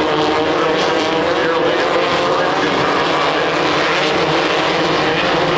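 Off-road race buggy engine running steadily at high revs, a continuous drone whose pitch wavers only slightly.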